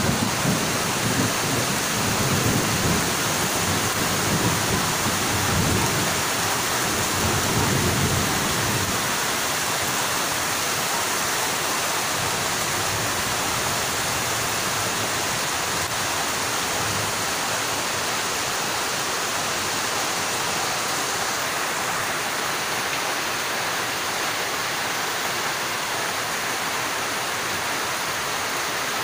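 Heavy rain falling in a steady hiss, with a low rumble during roughly the first eight seconds.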